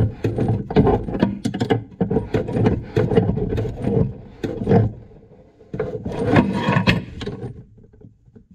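Water pump pliers clicking and scraping on a compression nut as it is tightened onto a thermostatic blending valve's pipe fitting, a run of quick metallic clicks and knocks that dies away near the end.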